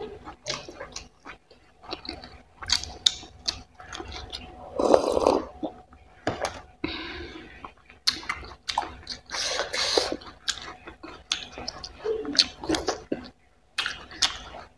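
Close-miked wet chewing: many small smacks and clicks of the mouth, with a few longer wet mouth sounds about five, seven and ten seconds in.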